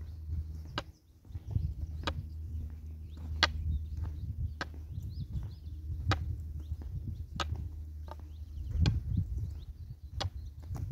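A walking stick's tip tapping on a paved road in a slow, even rhythm, about one sharp tap every second and a half, over a low steady rumble.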